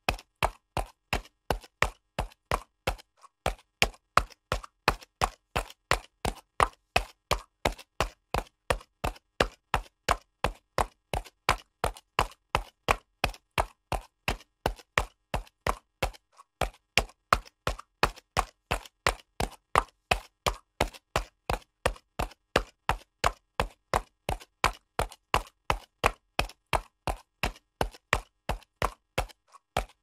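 A horse's hooves trotting on concrete: an even run of sharp clops, about three a second, with a brief break about halfway through.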